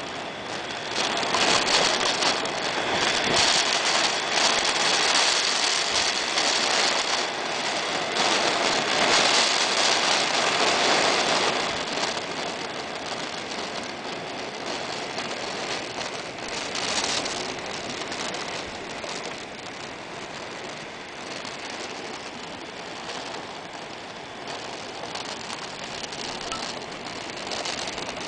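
Typhoon wind and rain, a steady rushing noise that is louder for the first twelve seconds or so and then eases off.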